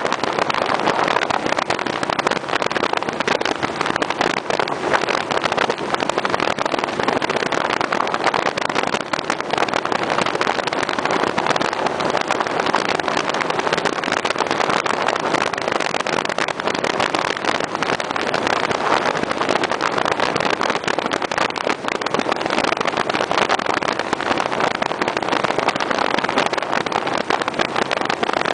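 Motorcycle running at a steady cruise, its engine note buried under even wind and road rush that hardly changes.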